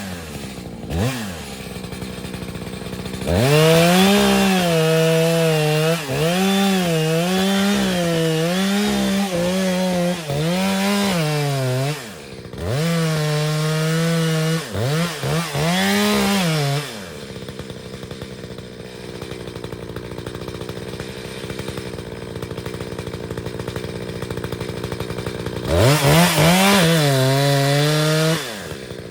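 Two-stroke chainsaw cutting a dead pine: the engine revs up and sags again and again as the chain bites into the wood, then drops to a lower steady run for several seconds before revving hard again near the end.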